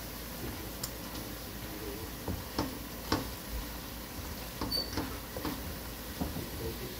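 Spatula scraping and knocking against the bottom and sides of a metal pot in irregular strokes while stirring ground spices into fried onions in oil.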